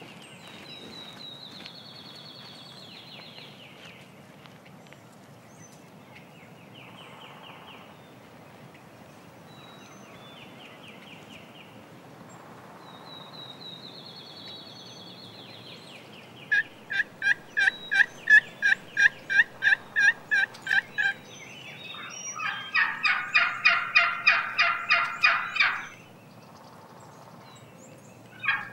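Wild turkey hen yelping. Past the middle comes a run of about a dozen evenly spaced yelps, about three a second, then after a short break a faster, rougher run of calls for about four seconds. She is reacting to a hen-imitating call, taking it for a rival hen.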